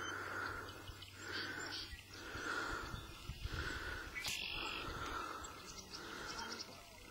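Outdoor ambience: a faint sound pulsing about once a second, with scattered short bird chirps and a low rumble near the middle.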